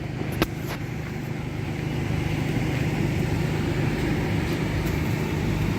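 A vehicle engine running with a steady low drone, one click about half a second in, and the engine and road noise growing somewhat louder from about two seconds in.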